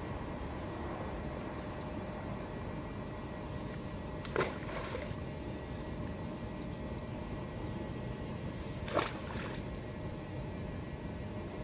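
Two splashes of a fishing magnet on its rope entering canal water, about four seconds in and again about nine seconds in, each brief with a short trailing spatter. Steady background noise runs under them.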